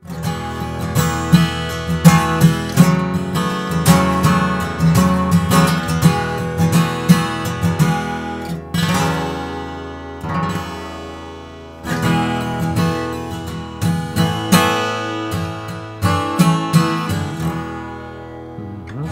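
Gibson J-45 Standard slope-shoulder dreadnought acoustic guitar, Sitka spruce top with mahogany back and sides, strummed in a rhythmic chord pattern. About nine seconds in, a chord is left to ring and fade for a few seconds before the strumming starts again.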